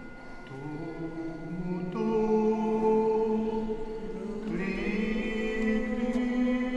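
Slow chanted singing in long held notes, the pitch shifting to a new note every couple of seconds.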